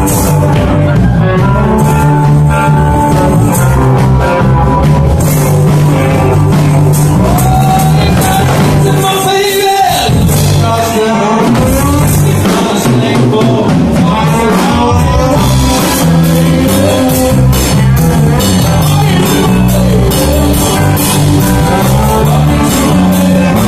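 Live blues band playing loud: electric guitars, bass guitar and drums, with a singer.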